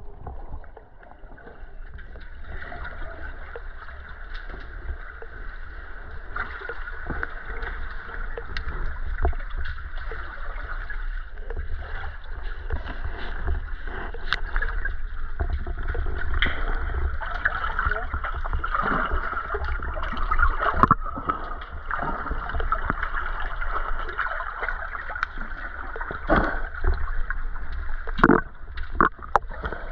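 Water sloshing and gurgling around a half-submerged camera, muffled and over a constant low rumble, with splashes from snorkelers swimming and kicking at the surface, several of them close together near the end.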